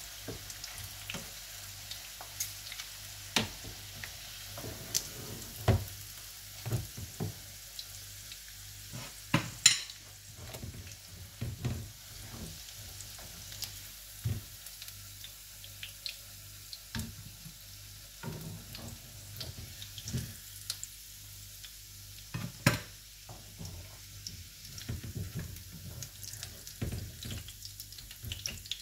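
Hot oil in a frying pan sizzling under lamb chops, with the burner just switched off. Tongs tap and scrape against the pan as the chops are lifted out. The sharpest knocks come about ten seconds in and again a little past twenty seconds.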